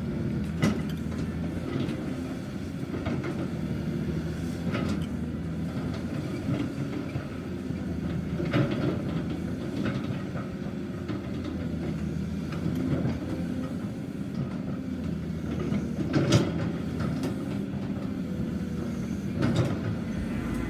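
Caterpillar 320D hydraulic excavator running: a steady diesel-engine drone with occasional sharp knocks and clanks from the working machine, the loudest about sixteen seconds in.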